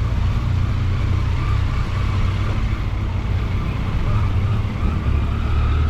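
Triumph Tiger 800's three-cylinder engine running at a steady cruise under way, a constant low drone with rushing wind noise over it.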